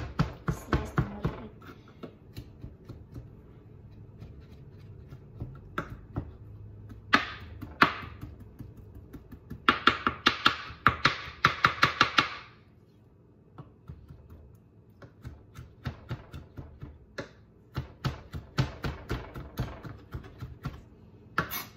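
Chef's knife chopping diced ham fine on a plastic cutting board: rapid runs of sharp taps of the blade on the board, with short pauses between runs.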